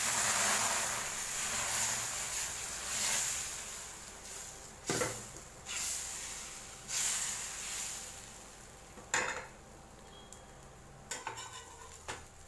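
Kambu (pearl millet) dosa batter sizzling as it is poured onto a hot, greased dosa tawa and spread in circles with a metal ladle. The sizzle is loudest at first, fades, then flares up again in several short bursts.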